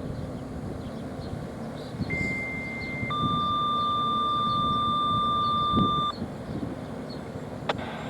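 Two-tone sequential radio paging tones sent to trigger the outdoor tornado warning sirens: a single high beep-like tone for about a second, then a lower steady tone for about three seconds, over a steady background hiss.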